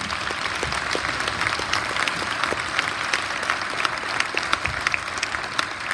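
Audience applauding: dense, steady clapping, with a few louder single claps close by in the second half.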